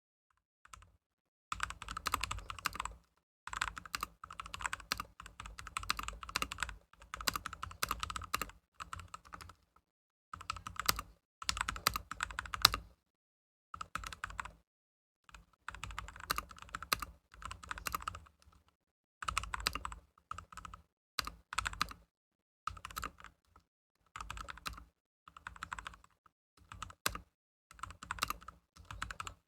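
Typing on a Yooso Z-88 mechanical keyboard with freshly lubed brown switches: runs of quick keystrokes broken by short pauses.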